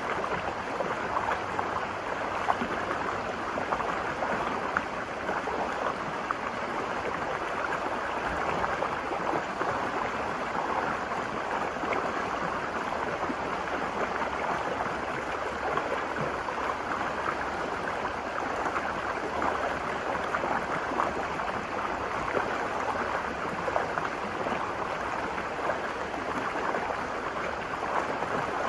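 Virgin River flowing over rocks: a steady rushing and gurgling of a shallow stream.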